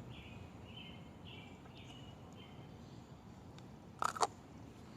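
Quiet outdoor background with a run of short, high chirps from a small animal over the first two to three seconds, then two sharp, short sounds close together about four seconds in.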